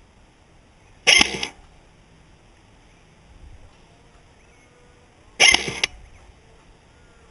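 Two single shots from a G&G GR25 DMR electric airsoft rifle, about four and a half seconds apart, each a sharp burst of the gearbox cycling.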